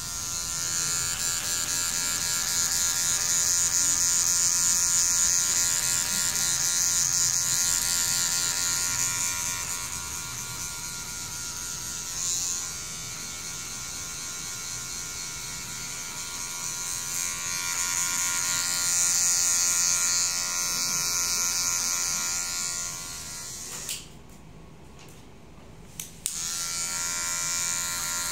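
Cordless electric hair clippers buzzing steadily while cutting hair, rising and falling in loudness. They stop for about two seconds near the end, then start again with a click.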